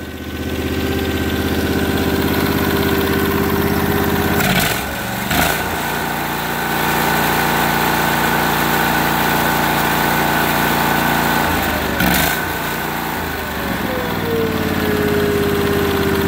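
Briggs & Stratton overhead-valve garden-tractor engine running unevenly. Its speed sags about four seconds in with a couple of sharp pops, another pop comes near twelve seconds, and it then picks up again. It is stumbling and backfiring because its air filter is plugged with oil.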